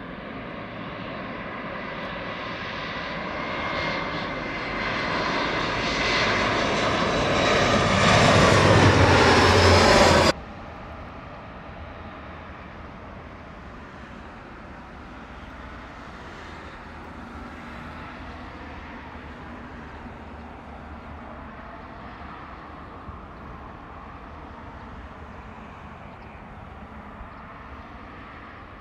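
Embraer E175's twin CF34-8E turbofans on landing approach, growing steadily louder, with a whine that falls in pitch as the jet passes close; the sound cuts off suddenly about ten seconds in. After that comes a steadier, quieter jet rumble as the airliner rolls down the runway after touchdown.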